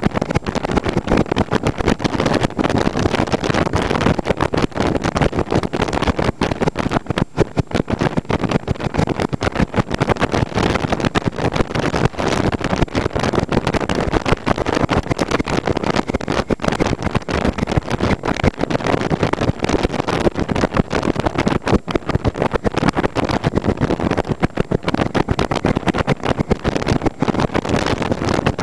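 Motorcycle riding at road speed: steady engine running under heavy wind rush, with rapid buffeting on the microphone.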